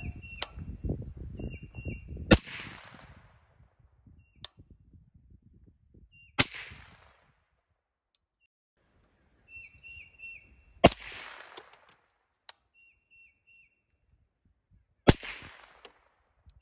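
Suppressed SIG 300 Blackout rifles, a Rattler and an MCX Virtus with SRD762 suppressors, firing 125-grain supersonic rounds. There are four loud shots about four seconds apart, each with a short echoing tail, and fainter sharp cracks between them. Birds chirp in the gaps.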